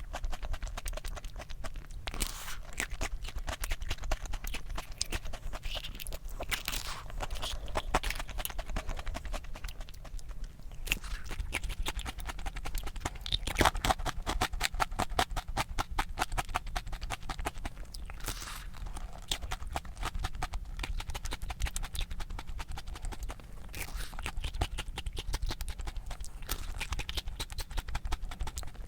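Close-miked chewing and crunching of a crisp ice cream cone: a dense run of small crunches that comes and goes with each bite.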